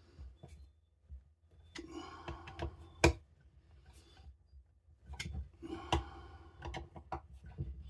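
Hand tools and small parts being handled during assembly: a scattered series of clicks and knocks, with sharp clicks about three and six seconds in.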